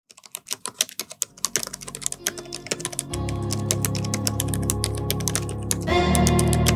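Rapid keyboard typing clicks, as a sound effect, over music that comes in quietly after about a second and grows louder about three seconds in and again near the end.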